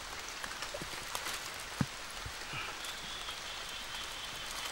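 Shallow water splashing and lapping around people wading in it, with scattered small splashes and ticks.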